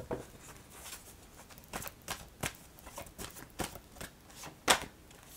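A deck of oracle cards being shuffled and handled: a string of short, sharp card snaps and flicks, the loudest one a little before the end.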